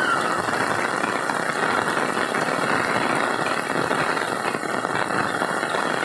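Heavy rain pouring steadily onto standing floodwater: a dense, even hiss of drops striking the water's surface.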